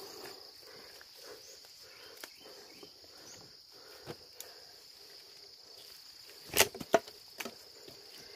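Steady high-pitched drone of forest insects, with scattered faint ticks and two sharp, loud knocks in quick succession about two-thirds of the way in.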